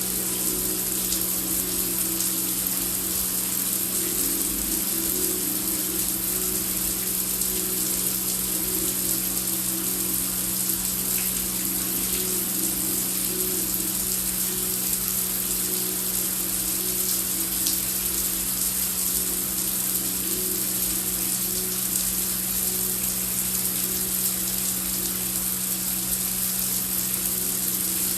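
Heavy rain falling steadily, an even hiss, over a low steady drone.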